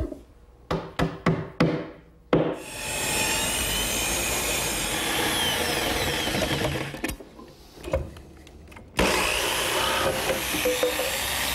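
A handful of sharp hammer knocks driving an epoxied carriage bolt home, then an electric jigsaw cutting through plywood. The saw drops out for about two seconds near the middle and then cuts on.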